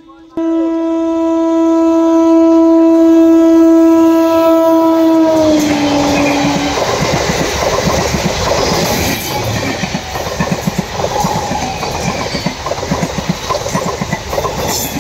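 A passing train sounds one long horn blast of about five seconds, which drops slightly in pitch as it ends. The wheels then clatter rapidly over the rail joints as the train runs past.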